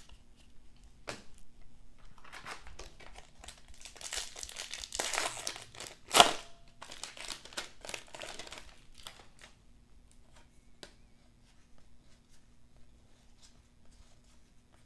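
A foil trading-card pack wrapper being torn open and crinkled, with one sharp rip about six seconds in, then faint light clicks of cards being handled.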